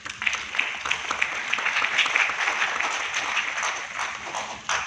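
Audience applauding: dense clapping that starts abruptly and thins out to a few last separate claps near the end.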